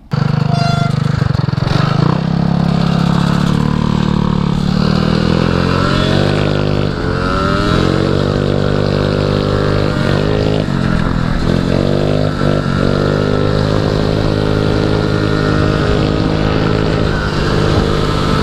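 150cc GY6 scooter engine running while riding, heard from onboard with wind rushing over the microphone; its pitch rises and falls with the throttle through the middle stretch.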